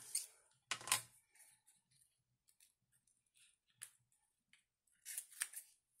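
Gold washi tape being torn off and pressed onto a plastic photo sleeve: a short sharp tearing rustle about a second in, a few faint ticks and a click, then a cluster of rustles near the end as the sleeve and tape roll are handled.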